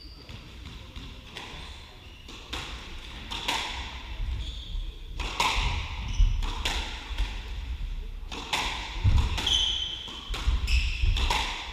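Squash rally: the ball cracks off rackets and the walls about once a second, with squeaks of court shoes on the wooden floor and thudding footsteps.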